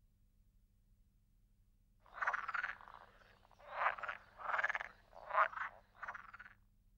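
Frog croaking: a series of about five rasping croaks starting about two seconds in, after near silence.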